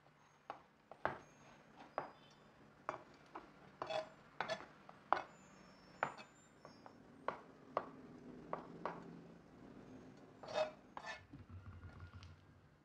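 Chef's knife slicing through sausages and striking a plastic cutting board: about twenty irregular sharp knocks that stop about eleven seconds in.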